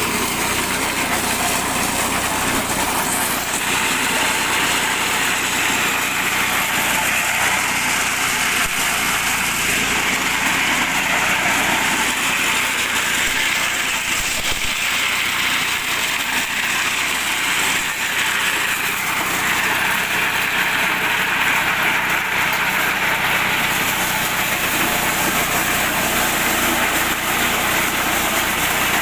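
Mini corn sheller driven by a small 8 hp petrol engine, running steadily. A higher rasping layer swells and fades several times over the engine's drone.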